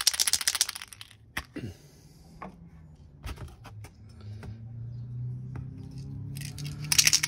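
Tamiya TS-28 olive drab aerosol spray can being shaken, its mixing ball rattling inside, briefly at the start and again near the end, with a few light knocks and clicks in between.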